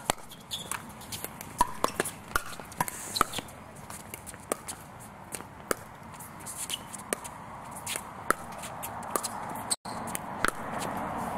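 Pickleball rally: paddles striking the hollow plastic ball in sharp pops, coming in quick, irregular succession.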